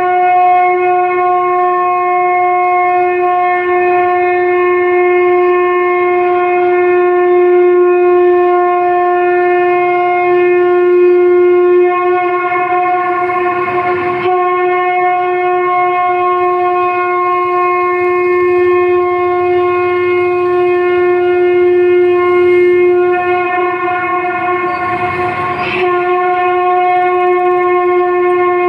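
A ceremonial horn blowing one long, loud note, held at a single steady pitch throughout, with two brief noisy swells partway through.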